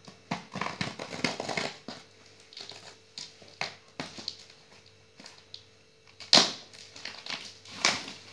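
Plastic packing tape on a cardboard box being punctured and torn open with a ballpoint pen, with irregular crackles and scrapes of tape and cardboard; the loudest crackle comes about six seconds in.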